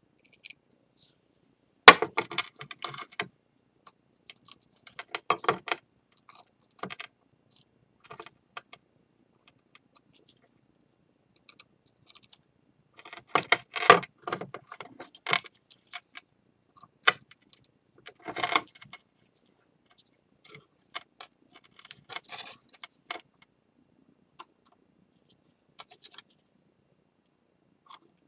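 Bursts of clicking and rattling of small hard objects, as pieces of a broken ceramic bowl and small tools are handled on a work surface. The loudest clusters come about two seconds in and again around the middle.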